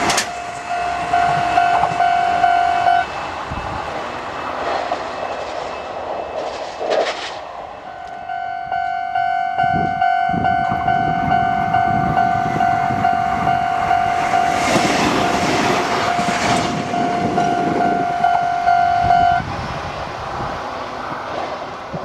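Level-crossing warning bell ringing steadily while electric trains pass with rumble and wheel clatter. The bell breaks off for a few seconds early on and stops about three seconds before the end.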